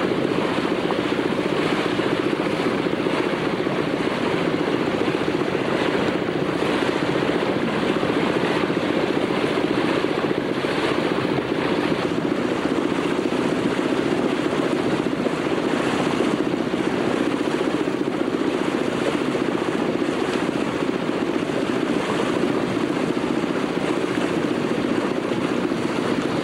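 Steady drone of a boat's engine running at constant speed, with water and wind noise mixed in.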